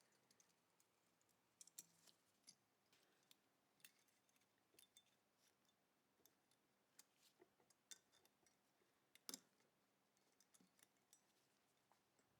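Faint, irregular small clicks and taps of hand work on small parts, with a sharper tap about nine seconds in.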